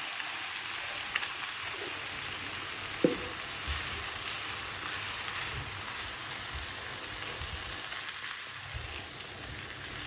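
Butter-fried onions, chicken and mushrooms sizzling in a pan with single cream just added, the sizzle slowly dying down as the cream heats. A few light clicks and one sharp knock about three seconds in come from the utensil against the pan.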